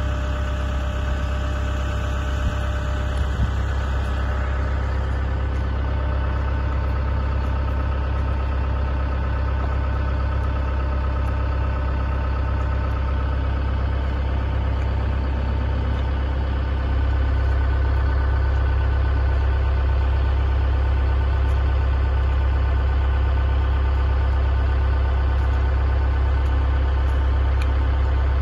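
A large engine idling steadily, a deep, even hum that gets a little louder about seventeen seconds in.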